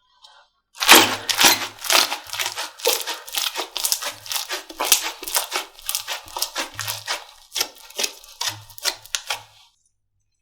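Slime being pressed and squeezed by hand, giving a rapid run of crackling clicks and pops with soft low thuds under them. It starts about a second in and stops shortly before the end.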